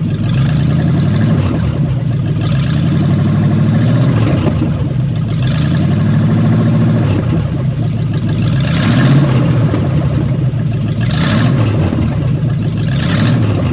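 Engine running at idle with a few light revs, giving off an odd exhaust noise whose cause is unknown. A rushing noise swells up and dies away every few seconds.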